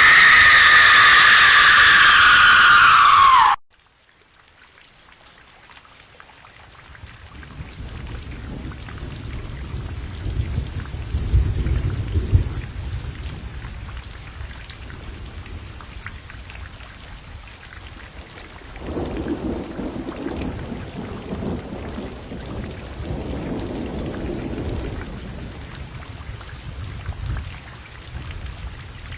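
A thunderstorm sound effect: rain hiss with low rumbling thunder that builds up, is strongest a little before the middle, and rolls again later. It opens with a loud falling tone that cuts off abruptly after about three and a half seconds.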